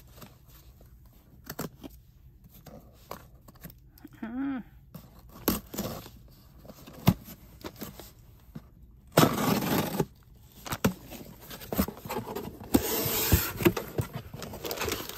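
Unpacking and handling noises from a plastic-wrapped storage bag: scattered clicks and knocks, then two longer bursts of rustling, about nine and thirteen seconds in.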